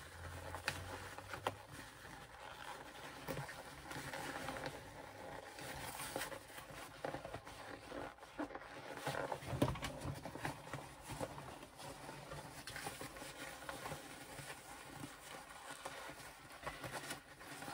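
Faint, irregular rustling and scuffing of cork fabric and waterproof canvas being pushed and pulled by hand through a zippered pocket opening as a bag is turned right side out.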